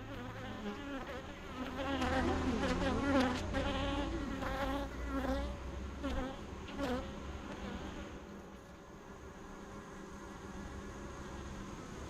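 Honeybees buzzing close by, with a wavering pitch as they fly near. The buzzing is loudest in the first half and eases to a fainter hum after about seven seconds.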